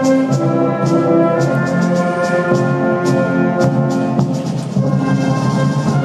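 Concert wind band playing, with held brass and woodwind chords and repeated percussion strokes.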